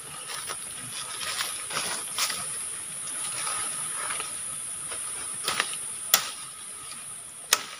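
Leaves and twigs rustling and swishing as a thin branch is pulled down through the undergrowth and cut with a machete. Near the end come three sharp cracks of the blade or the wood snapping. A steady high hiss runs underneath.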